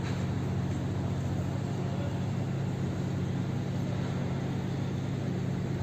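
Street traffic: a steady low hum of vehicle engines with a light hiss of street noise, unchanging throughout.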